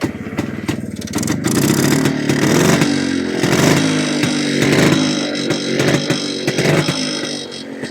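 Yezdi two-stroke motorcycle engine, freshly rebored, running and revved up and down in several throttle blips, easing back toward a lumpy idle near the end.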